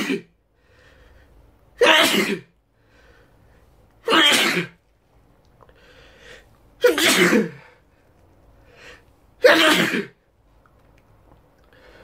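A man sneezing loudly over and over, one sharp sneeze about every two and a half seconds: the end of one at the very start, then four more.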